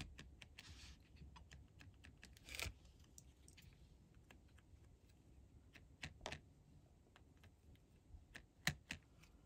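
Faint, scattered light taps and clicks as a small paper cutout is dabbed around its edges on an ink pad, with a few slightly louder taps a little after two seconds in, around six seconds and near the end.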